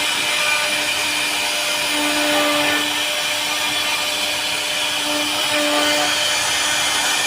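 CNC router carving wood: the spindle runs steadily with a constant cutting hiss, while a humming tone comes and goes every second or so as the machine moves.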